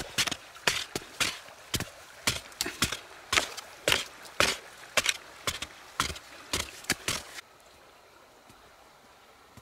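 A digging tool striking into earth again and again, about two blows a second, as a hole is dug in soil. The blows stop abruptly near the end, leaving faint outdoor background.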